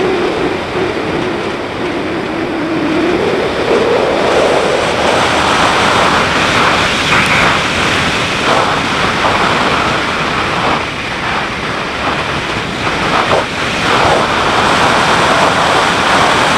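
Wind rushing over the microphone of a moving BMW G650GS single-cylinder motorcycle, with the engine's note faintly rising in pitch over the first few seconds.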